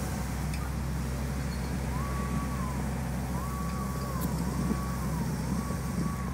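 Emergency vehicle siren repeatedly rising, holding and falling in pitch, starting about two seconds in, over a steady low rumble of passing road traffic.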